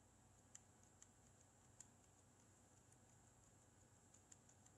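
Faint, irregular clicks of computer keyboard keys as a string of digits is typed, a few keystrokes spread across the few seconds.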